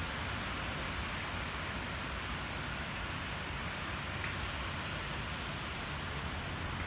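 Steady hiss of hail and rain falling, with a low rumble underneath.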